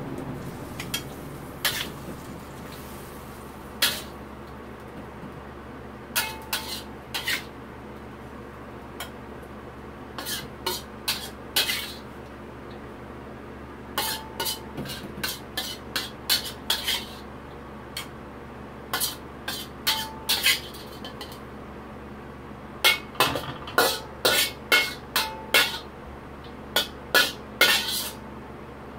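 Wok spatula scraping and clinking against a wok and a ceramic serving bowl as the stir-fry is scooped out: irregular sharp clinks in quick clusters, a few ringing briefly, with the busiest run near the end.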